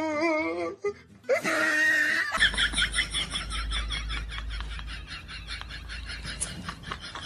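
A person laughing with a high, wavering voice in two short bouts, then after about two seconds a steady low rumble with a rapid run of faint clicks or crackles.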